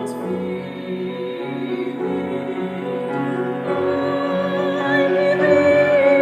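Slow classical-style music with long held notes, growing louder toward the end.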